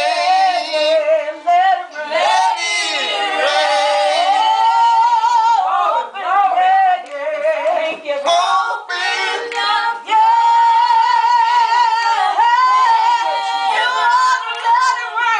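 A small group singing gospel, with a woman's voice leading on long, wavering held notes.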